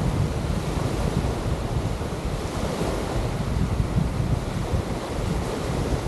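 Surf washing on a sandy beach, with wind buffeting the microphone in a steady low rumble.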